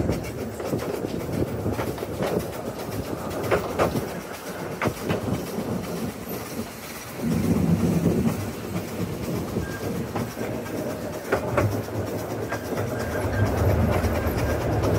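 Open narrow-gauge railway carriage running along the track: a steady wheel rumble with irregular sharp clicks from the rail joints. The rumble grows heavier and louder about seven seconds in.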